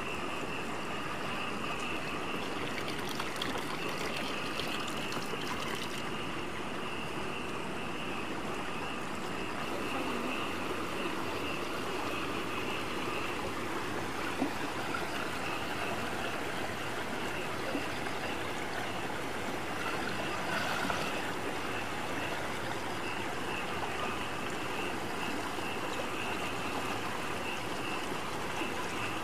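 Shallow stream water running and trickling over rocks, a steady wash of sound with a steady high tone over it.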